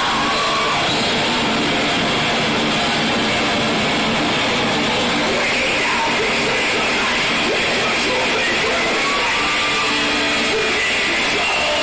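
Thrash metal band playing live: electric guitars, bass and drums at full, unbroken volume, heard from within the crowd.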